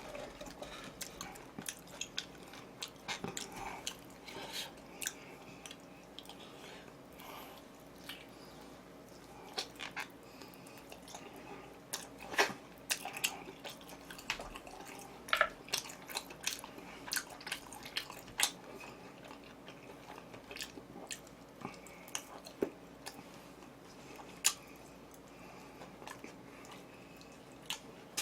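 A person chewing and biting food close to the microphone: irregular wet smacks and sharp little clicks, some louder than others, over a faint steady hum.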